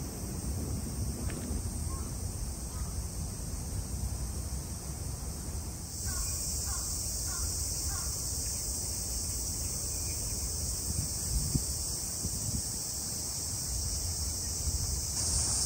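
Cicadas buzzing steadily in the garden trees, a constant high shrill that gets louder about six seconds in, over a low rumble of wind on the microphone.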